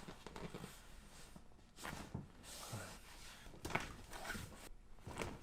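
A few soft knocks and rustles of a patient being handled on a chiropractic table during an adjustment, with short sharp clicks about two seconds in and again near the end.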